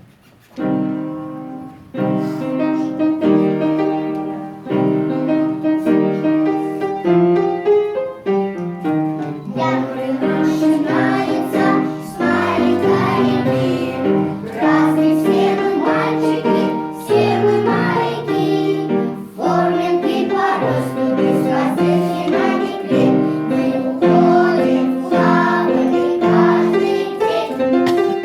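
Music with piano and singing, steady in level after a quiet first second.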